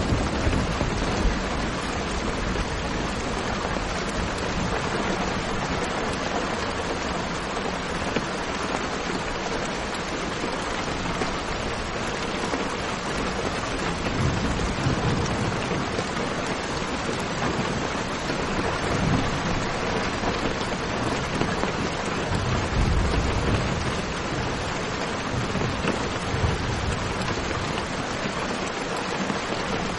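Steady, dense rainfall, with a few low rumbles of thunder swelling up about halfway through and again later.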